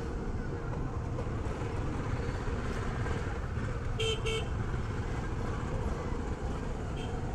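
Steady engine and road rumble of a Suzuki Every Wagon kei van on the move, with two quick horn toots about four seconds in.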